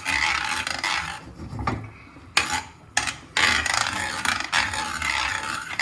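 A cooking utensil scraping and stirring around a pan, in rasping stretches with a short break and a few quick scrapes near the middle.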